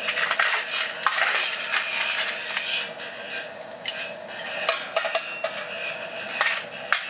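Wood pellet fire crackling inside a stainless-steel pizza oven over the steady hum of its small burner blower, run slowly at low voltage. Metal clinks and scrapes come as the pizza is moved on the stone.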